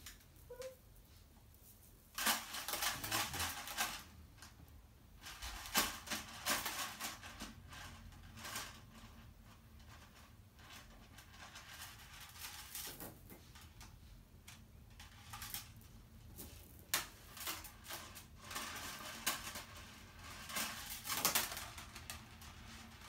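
Strings of plastic bead necklaces rattling and clicking in short clusters as they are handled, with longer runs of rattling about two seconds in and again over the last several seconds.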